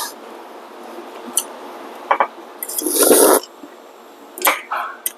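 Scattered sharp clicks and knocks of tools and parts being handled during engine-bay work, with one short, louder squishing burst about three seconds in.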